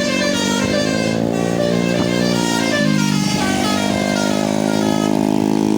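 Bus basuri (telolet) multi-tone horn playing a tune: several tones sounding together, held and stepping to new pitches, with a slide down and back up a little past the middle.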